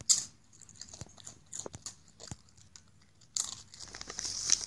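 Raccoon crunching on chips in scattered small crunches, then from about three seconds in crinkling a Doritos chip bag with its paws.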